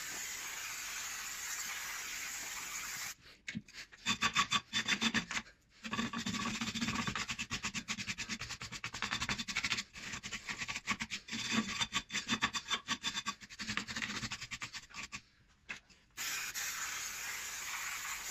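Aerosol brake cleaner hissing steadily as it is sprayed onto a drum-brake back plate and shoes, then a wire brush scrubbing the back plate in fast back-and-forth strokes for about twelve seconds, and near the end another steady spray of brake cleaner.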